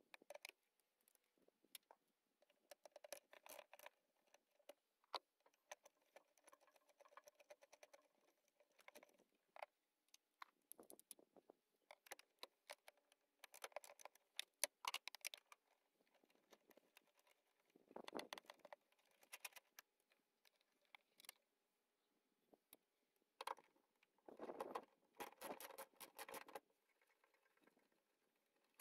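Faint, scattered clicking and rattling of hand tools, with quiet gaps between: a ratchet wrench clicking and metal and plastic parts knocking as the battery and air box fasteners are loosened.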